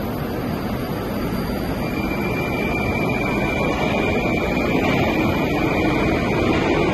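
Metro train moving alongside a station platform: a steady rumble of wheels and motors that grows gradually louder, with a thin high steady whine coming in about two seconds in.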